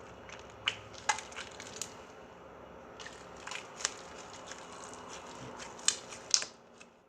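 Sticky slime being pressed and pulled apart by hand on a table, giving scattered small crackles and sticky pops, the two loudest near the end.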